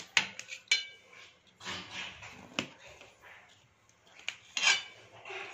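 Kitchen knife cutting a soft steamed semolina cake on a stainless-steel plate: a few sharp clicks of the blade against the steel plate, with short scraping sounds between them.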